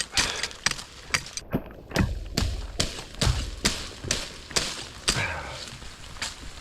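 Wooden stakes being chopped by hand: a steady run of sharp chopping blows on wood, about two to three a second, growing lighter near the end.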